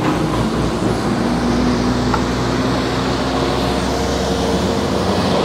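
Road traffic noise: a motor vehicle's engine hums steadily, with a faint pitched tone over a low rumble.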